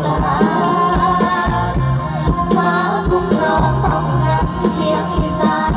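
Isan mor lam band music: a singer's voice over the band, with bass and a steady drum beat.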